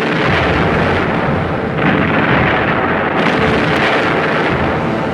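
A loud, sustained rumbling blast of noise, a monster-film sound effect like thunder or an explosion, with a brief swell about two seconds in.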